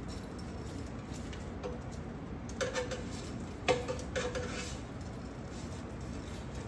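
Metal tongs clinking against an air fryer basket as breaded chicken tenders are turned over: a few light clinks with a short ring, the sharpest about halfway through.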